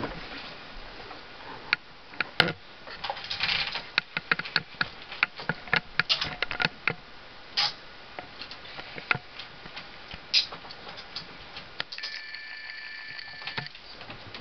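Metal chain and handcuffs clinking and rattling in irregular clicks as they are pulled and shifted against a bed frame. About twelve seconds in, a steady high tone of several pitches sounds for about a second and a half.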